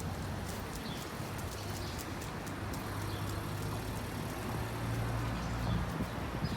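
Street traffic: a vehicle engine running with a low hum that grows louder in the second half, with scattered light clicks over it.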